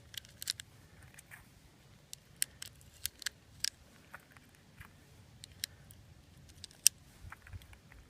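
Irregular light metallic clicks and taps of cartridges and a handgun being handled, with a sharper click about seven seconds in.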